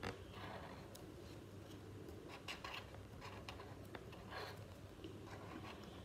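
Marker pen drawn slowly over paper, a faint irregular scratching in short strokes as it traces an outline.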